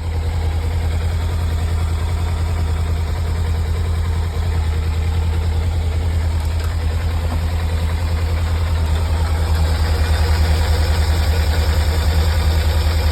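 Kawasaki Ninja 300's parallel-twin engine idling steadily, a little louder from about nine seconds in.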